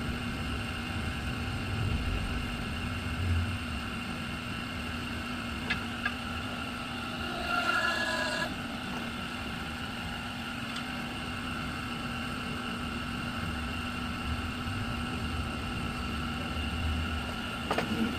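Hydraulic alloy-wheel straightening press running with a steady hum over a low rumble, while the ram is used to straighten a dented rim. A brief higher whine comes about eight seconds in, and a couple of light clicks come shortly before it.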